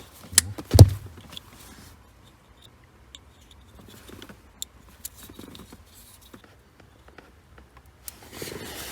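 Two sharp knocks in the first second, the second the loudest, then faint scattered clicks and rustles of hands handling wires and small parts.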